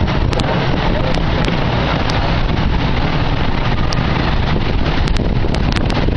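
Gasoline-powered 16-inch gauge miniature park train running along its track, heard from an open passenger car: a steady low rumble with a few scattered ticks, and wind buffeting the microphone.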